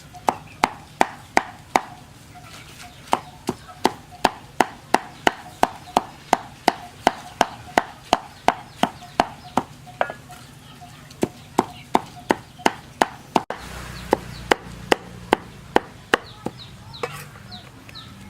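Knife chopping food on a wooden cutting board in a steady rhythm of about three strokes a second. The chopping gives way to a few scattered knocks about two-thirds through, and chickens can be heard clucking faintly in the background.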